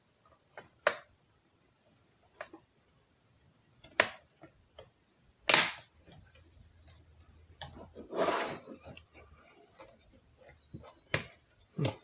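Plastic snap clips of a Dell G15 5515 laptop's bottom cover clicking as the cover is prised loose by hand: about half a dozen sharp, separate clicks, with a longer scraping rustle of plastic about eight seconds in.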